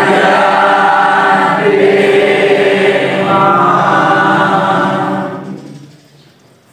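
Many voices singing together in unison, in long held notes like a devotional chant. The singing fades away about five and a half seconds in.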